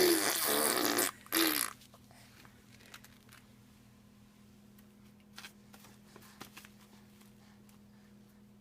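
A fart sound in two bursts: a long spluttering one of about a second, then a short one. After them there is only a steady low electrical hum with a few faint clicks.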